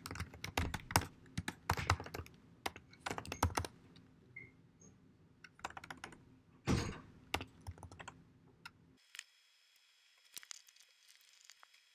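Typing on a computer keyboard in quick irregular bursts of keystrokes as a terminal command is entered; the typing stops about nine seconds in, leaving only a few faint clicks.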